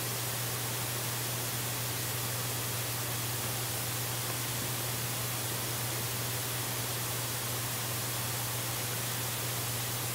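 Steady hiss of static with a constant low hum from a live nest cam's microphone.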